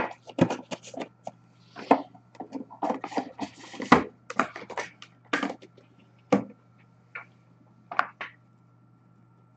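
Hands handling cardboard trading-card boxes and their packaging: a quick run of taps, knocks and short rustles that stops near the end.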